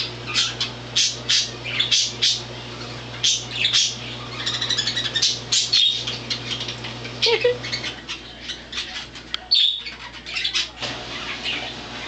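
Pet budgerigars chirping and chattering, with quick, sharp calls coming in spells throughout.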